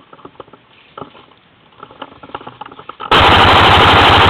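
Airsoft AK-74 electric rifle firing a long full-auto burst, rapid even shots of about 15 to 20 a second, starting suddenly near the end. It is very loud and distorted, close to the microphone.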